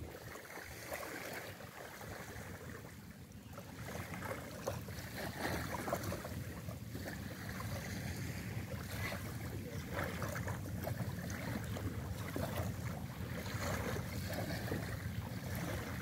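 Small wooden fishing boat's engine running steadily at a low hum, with wind and water sloshing around the hull and the shallows. It grows louder about four seconds in.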